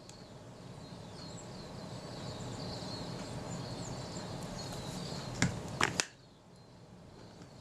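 Three sharp little clicks close together about five and a half to six seconds in, from handling the camera's mechanism, over a low background rush that cuts off right after the last click. Birds twitter faintly in the background.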